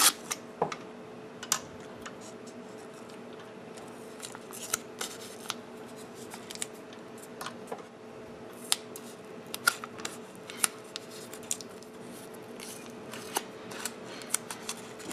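A roll of insulating tape being pulled, handled and pressed around wire ends: irregular sharp crinkles and clicks, over a steady hum.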